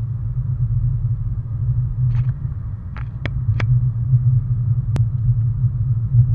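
Car engine and road noise heard from inside the cabin, a steady low rumble, with a handful of short sharp clicks between about two and five seconds in.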